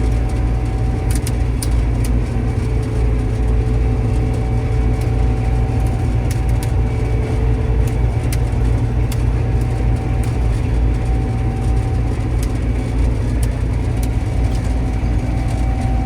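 Gleaner R52 combine running steadily while harvesting soybeans: a constant low engine and machinery drone with faint steady whines and scattered light ticks.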